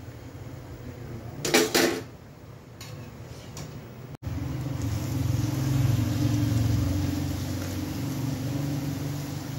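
Murukku deep-frying in hot oil in a steel kadai, with a short metallic clatter about a second and a half in. After a sudden cut about four seconds in, fresh dough is pressed into the oil and a louder, steady low rush with sizzling sets in.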